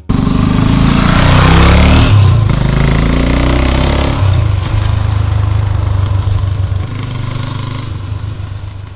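Sidecar motorcycle engine pulling away. It revs up twice in the first few seconds, then runs steadily and fades as the bike rides off.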